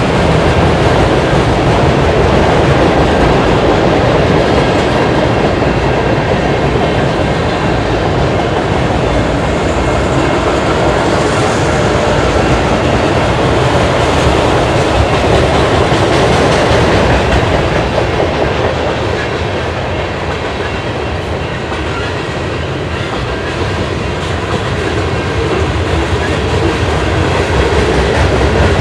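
Manifest freight train's cars rolling past close by, the steel wheels clattering over the rails in a steady, loud rumble that eases slightly about two-thirds of the way through.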